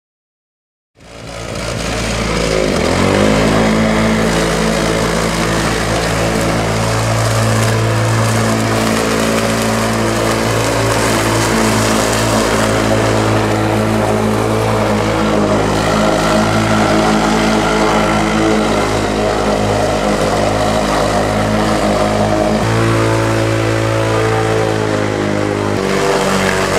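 Gasoline walk-behind push lawn mower engine, coming in about a second in, rising to speed, then running steadily as the mower is pushed across grass.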